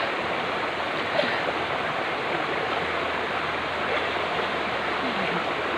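Steady rush of a running stream flowing over stones.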